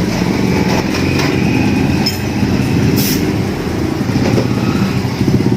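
An engine running steadily, with a fast low pulsing.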